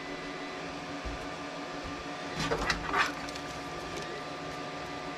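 A steady room hum with faint steady tones, and a few brief clattering handling noises about two and a half to three seconds in, as a graphics card is picked up and fitted into an open-frame mining rig.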